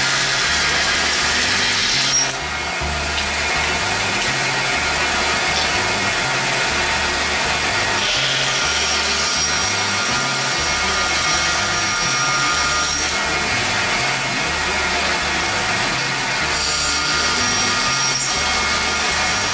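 A Yates American 30-inch Snowflake bandsaw from the late 1930s or early 1940s runs steadily while its blade cuts thin strips off an oak block. The saw noise dips briefly about two seconds in, then carries on.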